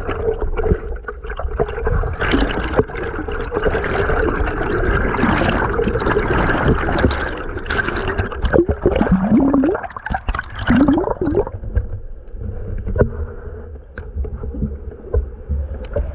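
Creek water rushing and bubbling, heard from a camera submerged in the stream: a steady rush with scattered clicks and gurgles, growing quieter about twelve seconds in.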